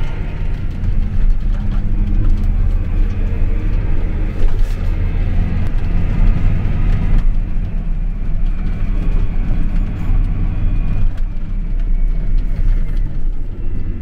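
John Deere 8R tractor's diesel engine running steadily under load, heard from inside the cab as a constant low drone with field rumble.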